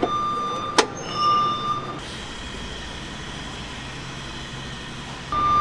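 Bandit SG75W stump grinder running steadily at idle. A high electronic beep sounds twice in the first two seconds and again just before the end, and a sharp metallic click comes about a second in.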